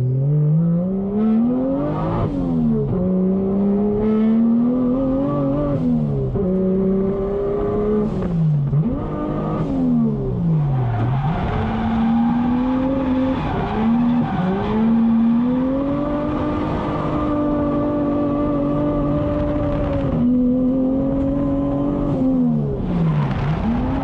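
Toyota 1JZ VVTi inline-six in a Nissan 240SX S13 drift car, heard from inside the cabin at full throttle. The revs climb, hold and drop sharply again and again, then pick back up. Tyre squeal hisses through the middle stretch.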